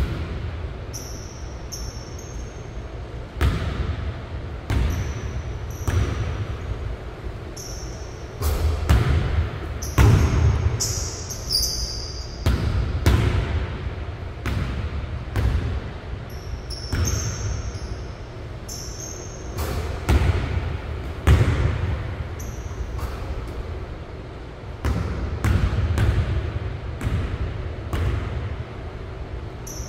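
Basketball bouncing and thudding on a hardwood gym floor at an irregular pace, each thud echoing through the large hall. Short high sneaker squeaks come in between.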